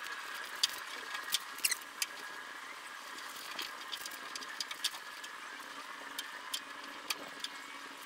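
Rubber hood seal being worked by hand into the channel of a VW Beetle front hood: scattered small clicks and short squeaks of rubber and metal, over a steady faint hum.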